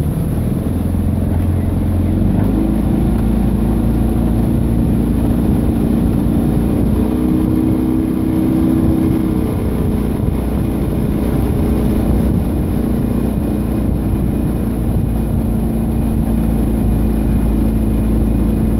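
Outboard motor of a motorboat running steadily, heard from on board, its hum shifting in pitch a couple of times.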